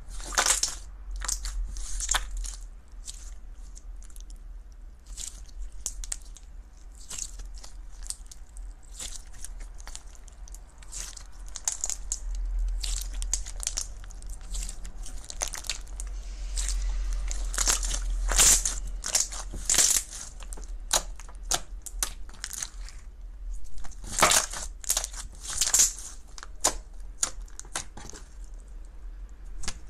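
Clear slime full of beads being squeezed, stretched and pressed by hand, giving irregular crackles, pops and squelches that come in louder clusters now and then.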